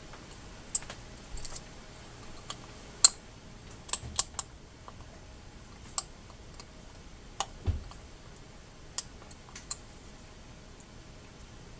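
Small fishing-reel parts handled by hand: irregular sharp clicks and taps as a brass click part and its screw are fitted into the reel's side plate, the loudest a few seconds in.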